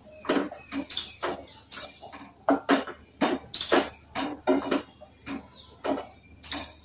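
Wooden spoon stirring thick curry in a nonstick pan, scraping across the pan with short, irregular strokes, about two a second.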